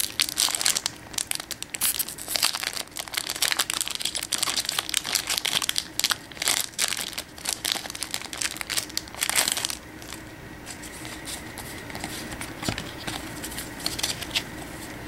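Crinkling and rustling of a foil trading-card booster pack wrapper being handled and torn, a dense crackle for about ten seconds that then dies down to a few light ticks.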